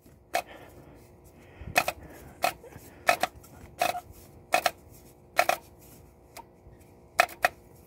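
Sharp plastic clicks and taps, about a dozen at uneven intervals, as a hand turns and re-grips the plastic oil filter housing cap under a 2008 Volkswagen Rabbit while screwing it on by hand.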